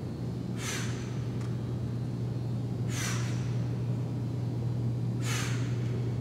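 A woman breathing out forcefully three times, about two and a half seconds apart, one breath with each trap bar deadlift rep, over a steady low hum.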